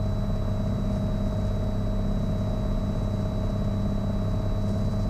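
Cessna 182 Skylane's piston engine and propeller droning steadily, heard from inside the cabin, with a thin high whine running above it.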